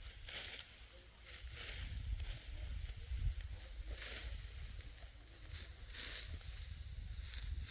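Dry wheat stalks swishing and rustling in repeated strokes, one every second or two, as ripe wheat is harvested by hand. A low rumble runs underneath.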